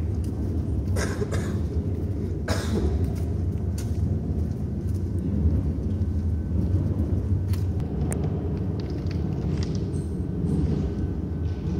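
Steady low rumble of a rail vehicle running through a railway tunnel, with a few sharp knocks about one and two and a half seconds in.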